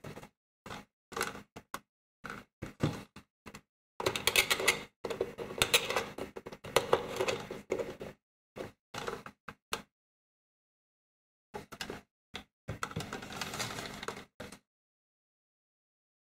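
Irregular plastic clicks, taps and rattles from hands working a BN-1-003 signal lantern at its reflector and bulb holder. There are two longer stretches of busy rattling and scraping, one a few seconds in and another shorter one later on.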